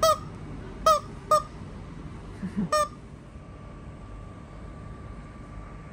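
Bird toy squeaking four times: short, pitch-bending squeaks, three in the first second and a half and one near three seconds in.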